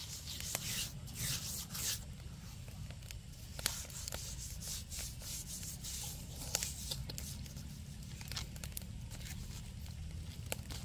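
Hands rubbing coarse salt over the scaly skin of whole redfish in a wicker basket: irregular gritty scraping strokes with many sharp ticks of salt grains.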